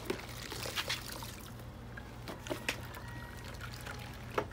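Water sloshing and dripping as a spin mop's head is dunked in the bucket water and lifted into the wringer basket, with a few light plastic knocks.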